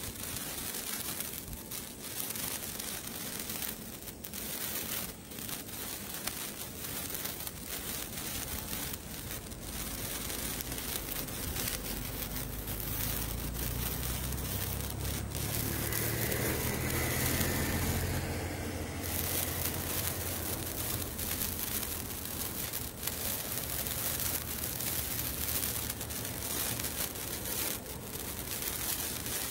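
A red colour sparkler burning: a steady fizz studded with many small sharp crackles. A low hum swells up in the middle and fades again.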